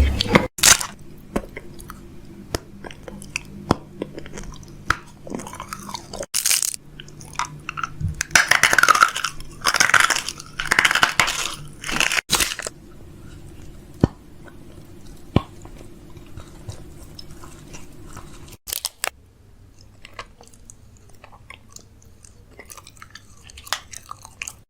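Chewing and crunching: irregular crisp crunches and clicks, with a run of louder crunches around the middle.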